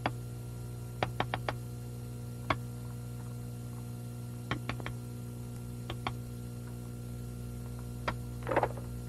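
Steady low electrical hum with scattered light clicks and taps: small objects handled on a glass-topped desk, a few at a time, about one, two-and-a-half, four-and-a-half, six and eight seconds in.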